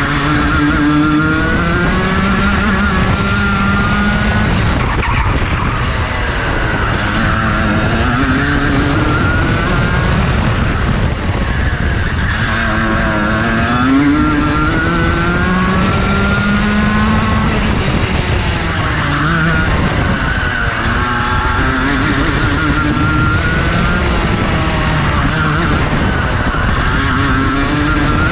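Rotax Junior Max 125 cc two-stroke kart engine at racing pace, heard from on board the kart. Its pitch keeps climbing and then dropping several times, rising on the straights and falling as it slows for the corners.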